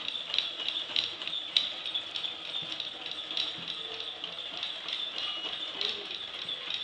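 Kinetic sculpture's automaton mechanism running: irregular light clicking and rattling over a steady hiss.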